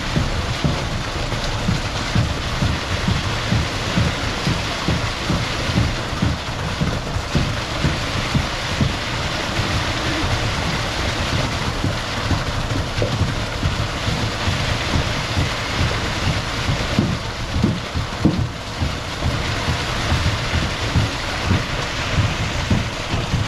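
Concrete pump truck running while concrete pours from the boom's end hose into steel wall forms: a steady rushing noise with many quick, irregular low thumps.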